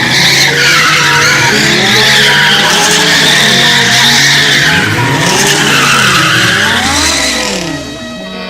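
Car tyres squealing in a long skid, with the engine revving up and down several times beneath the screech.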